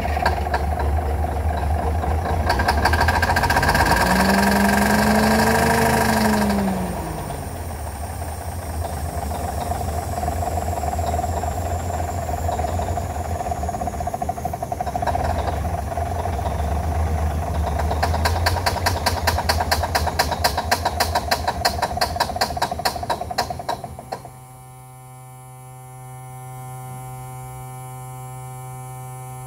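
Cummins 250 non-turbo inline-six diesel in an old army truck running after sitting neglected, revved up and back down a few seconds in. Later it runs with a fast, even clatter, then cuts off suddenly, leaving only a steady hum.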